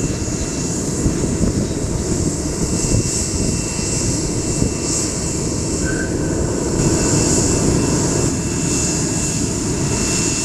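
Jet engine noise from an Airbus A320-family airliner landing and rolling out on the runway: a steady rumbling rush, with a constant high hiss over it.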